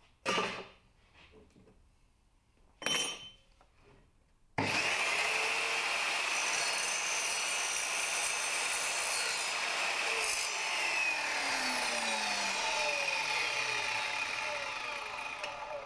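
Two short sharp knocks, then an Evolution R210SMS+ sliding mitre saw starts up with a rising whine about four and a half seconds in, its multi-material blade cutting through copper pipe. About ten seconds in, the motor is released and the blade spins down with a falling whine.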